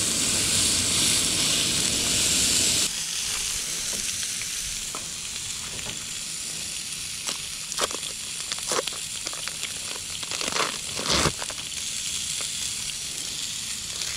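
Beef burger patties sizzling on a flat-iron griddle over a propane camp stove, an even frying hiss. It drops suddenly to a quieter sizzle about three seconds in, with scattered light clicks and taps later on.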